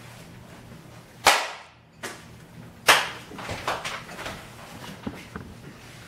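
Two sharp smacks, about a second and a half apart, followed by softer clicks, rustling and shuffling.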